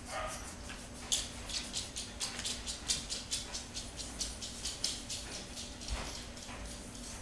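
Crayon scribbling back and forth on a sheet of paper on a tabletop, a rhythmic scratching of about four strokes a second that fades after about five seconds.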